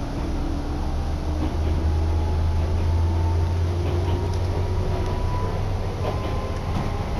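Train running noise heard inside the carriage: a steady low rumble with a faint whine above it, swelling a little early on and easing off after.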